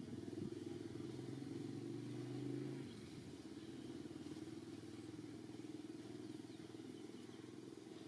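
Faint, steady low hum of a distant engine running, which drops away about three seconds in and carries on more weakly.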